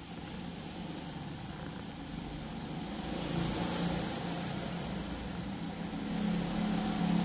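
Cat purring close to the microphone: a steady low rumble that grows gradually louder.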